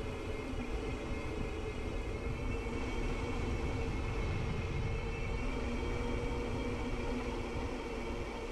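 Steady low rumble of wind and trail noise on the microphone of a mountain bike ride on a dirt trail, with a faint steady hum.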